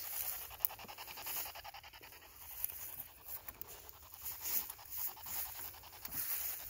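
Jacket fabric rustling and scraping against a phone's microphone as the phone is handled. The scratchy handling noise comes and goes irregularly.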